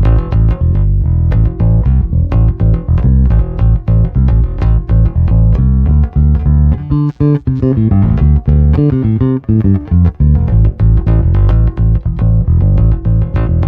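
Electric bass, a Fender P&J, played through a Traynor YBA300 all-tube bass head and heard straight from its post-EQ DI out with no cabinet mic. It plays a busy, continuous line of plucked notes, with a run climbing into higher notes about halfway through. The tone is clean and clear but a bit bright.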